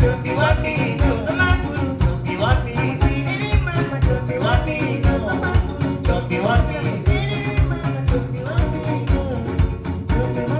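Live acoustic band music: singing over homemade plucked string instruments and hand percussion keeping a steady beat.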